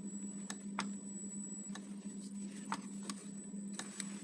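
Refrigerator control board giving off a thin, steady high-pitched squeal over a low steady hum, with irregular light clicks from handling. The squeal is the fault being traced, which the repairer suspects comes from a coil on the board, perhaps a bad contact.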